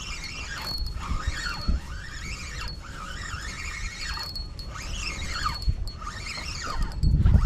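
Spinning reel (Daiwa Freams) whining in a rising and falling pitch, about once a second, while a hooked pike is played and reeled in. A louder low rumble comes near the end.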